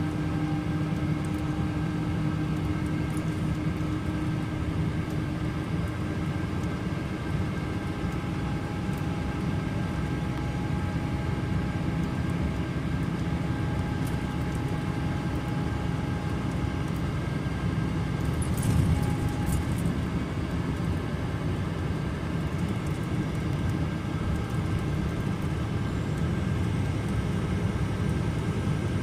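Mercedes-Benz Citaro C2 LE Ü city bus with its OM 936 six-cylinder turbo diesel running, a steady rough, rattling rumble. A brief clank comes about two-thirds of the way through.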